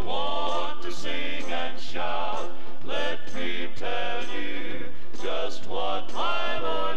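Southern gospel music from a 1970 vinyl LP: a male vocal quartet with band backing.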